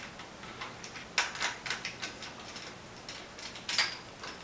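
A run of irregular light clicks and taps from a drum-rack clamp being loosened with a small drum key while a bar is worked into it. The loudest clicks come about a second in and again near the end.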